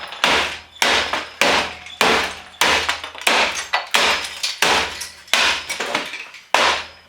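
Hammer pounding the metal case of a desktop computer to free the disk drives, in steady blows about every half second, each with a short clanging ring.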